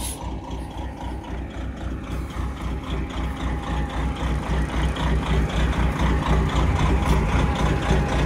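International cabover semi tractor's diesel engine running at low speed as the tractor backs up. Its steady low engine beat grows gradually louder.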